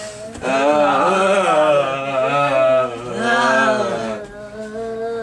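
A voice making long, drawn-out chanted or moaned notes that bend in pitch, in about three phrases, the last held steadier and quieter.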